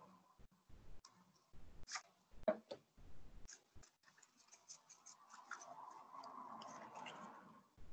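Faint scattered clicks and taps picked up on an open video-call microphone, with a faint muffled murmur from about five seconds in until just before the end.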